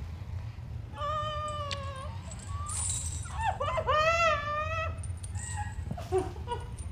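A young woman's high-pitched whimpering cries: a short one, then a longer one that wavers up and down about halfway through, and a brief one near the end. A low steady rumble runs underneath.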